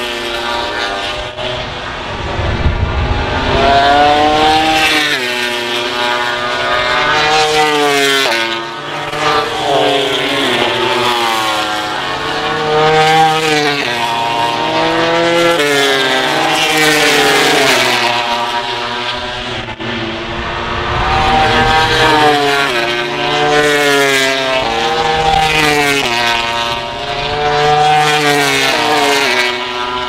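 1000 cc MotoGP race bikes at full throttle on track. The engine note climbs in pitch and drops back again and again, like bikes accelerating through the gears, and it rises and fades as several bikes go by in turn.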